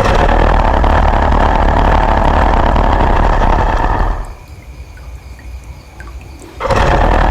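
Monster roar sound effect: a loud, rough roar with a deep low end lasting about four seconds, then stopping, with a second roar starting near the end.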